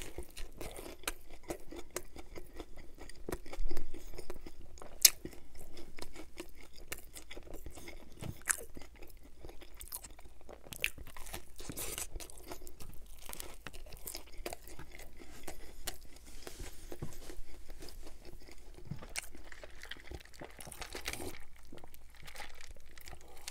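Close-miked biting and chewing of a grilled sub on panini-pressed cheese bread with a breaded chicken strip: crisp crunches and wet mouth sounds, with two loud bites about four and five seconds in. Near the end comes a sip from a paper cup.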